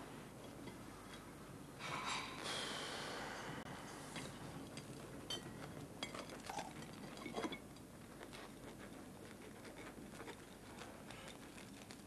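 Scattered light clinks and taps of crockery and cutlery at a breakfast table, with a brief rushing hiss about two seconds in that fades away.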